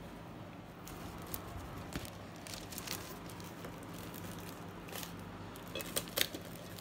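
Faint kitchen handling sounds, soft clicks and scrapes, over a steady low hum, with a few sharper ticks near the end.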